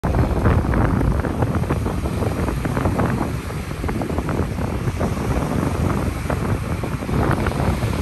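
Ocean waves washing onto a beach: a steady rush of surf, with heavy wind rumble on the microphone.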